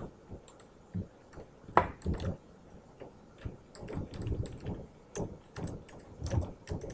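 Computer keyboard typing: separate keystroke clicks at an uneven pace, with short gaps between them.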